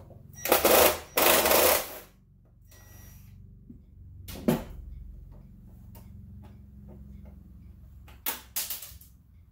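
Handling of a stove's control switch and its metal mounting as it is worked free of the control panel: two loud scrapes in the first two seconds, a sharp click about four and a half seconds in, and a quick cluster of clicks near the end.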